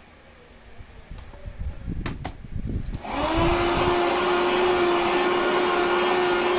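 Handheld car vacuum cleaner, converted to run on a rechargeable battery, switched on about halfway through: the motor spins up quickly and then runs steadily with a whine and rushing air. Before that, handling knocks and a couple of clicks.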